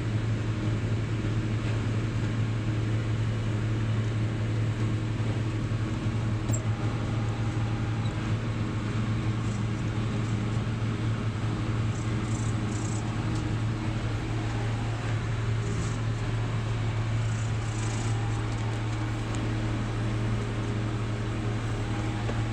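Tractor engine running steadily under load while mowing hay, a low, even drone with no change in pitch.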